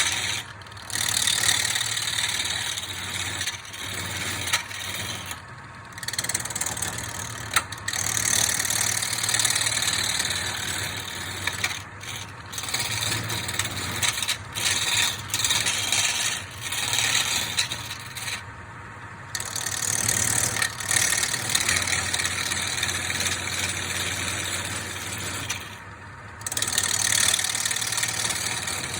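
Wood lathe running with a steady motor hum while a turning tool cuts into spinning root wood, a harsh scraping hiss that breaks off briefly every few seconds as the tool lifts from the wood.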